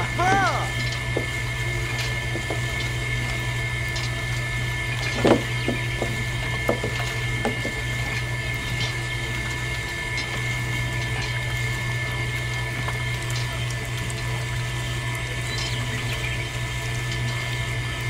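Liquid trickling from the spouts of a miniature toy juicing machine into small buckets, over the steady hum of its small pump motor. Two short sliding calls come near the start and about five seconds in.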